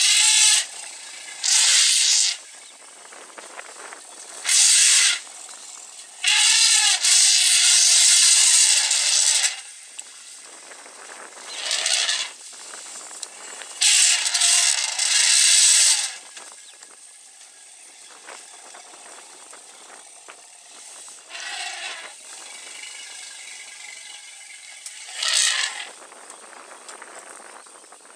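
African elephants in a herd giving loud, hissy blasts through their trunks, about seven of them. Most are short, and two run for two to three seconds.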